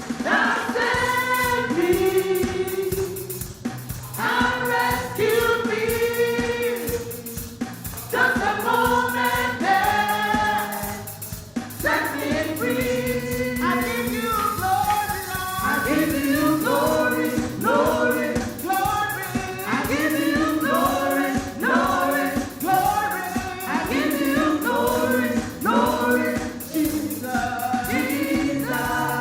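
Gospel worship song sung by a group of voices over keyboard-style accompaniment with a steady beat.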